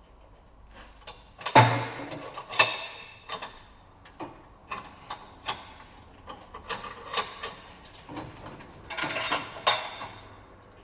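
Metal tools and parts clanking and knocking at a bench vise while a leaf spring bush is being pressed out: a loud ringing metal clank about one and a half seconds in, another a second later, scattered ticks, and a clattering rattle near the end.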